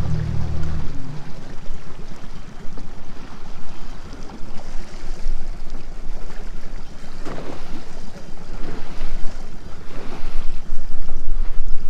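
Water rushing and lapping along a small aluminium skiff's hull as it moves, with wind buffeting the microphone. A low steady hum fades out about a second in.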